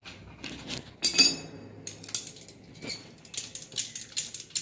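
Metallic clinks and ticks of a hand tool working a brass fitting on a water pipe, with one louder ringing clink about a second in and quicker small ticks near the end.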